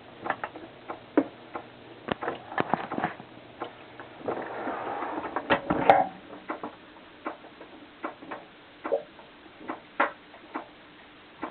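Scattered ticks, clicks and pattering inside a dishwasher, with a short swell of rushing noise about four to six seconds in.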